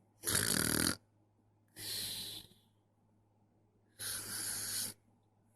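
Newborn baby snoring in his sleep: three breaths about two seconds apart, the first with a low buzz.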